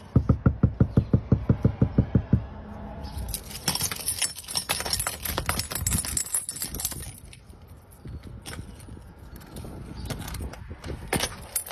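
A fast, even run of knocks on a front door, about eight a second, for two seconds. Then a bunch of keys on a carabiner jangles, and a key goes into a deadbolt lock with small metallic clicks near the end.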